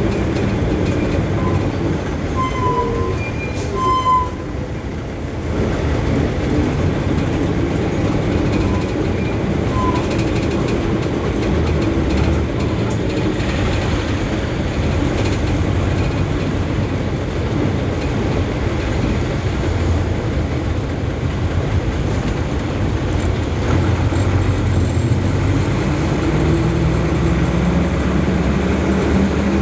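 Road traffic: heavy vehicle engines, such as buses and trucks, running and passing in a continuous low rumble. There are a few short high tones about two to four seconds in, and a louder, steady engine drone near the end.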